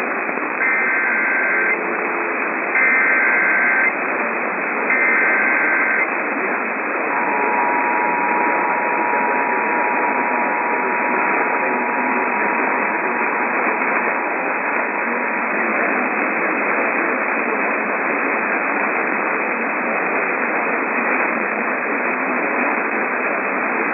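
Emergency Alert System tones over radio static: three bursts of the SAME digital header, a warbling data sound about a second each, then the two-tone EAS attention signal held for about eight seconds. This is the start of the next alert. After the tones, only static remains.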